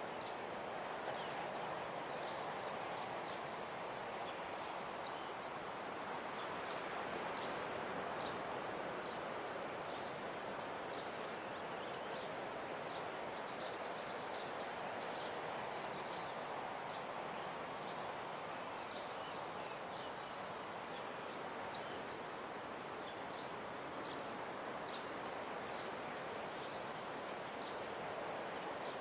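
Steady wash of surf that swells and eases slowly, with many short, high bird chirps over it and a brief high steady buzz about fourteen seconds in.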